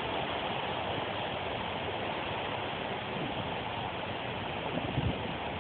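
Steady hiss of outdoor background noise, with no clear dog sounds standing out.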